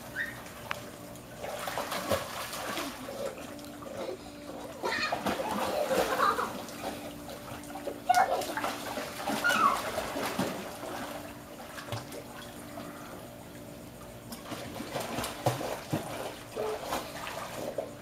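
Dogs swimming in a swimming pool, paddling and splashing the water irregularly, busiest in the middle and calmer for a few seconds after.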